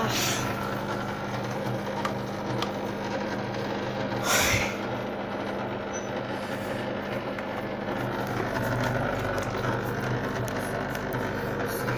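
LG WD-80155NUP front-loading washing machine running its wash cycle: a steady motor hum as the drum turns, with a brief louder swoosh about four seconds in.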